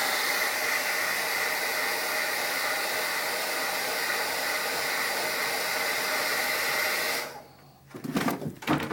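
Electric hot-air blower running steadily as it heats the edge of an iPhone to soften the adhesive under the digitizer glass, then switched off suddenly about seven seconds in. A few light handling clicks follow near the end.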